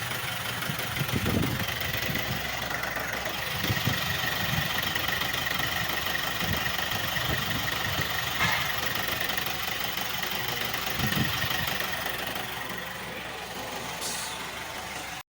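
JAC T8 pickup's 4DB1 diesel engine idling, with a faint steady whine.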